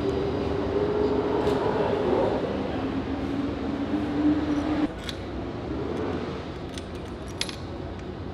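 Light metallic clinks and clicks as the gearbox casing and parts are handled, over a steady hum that stops about five seconds in.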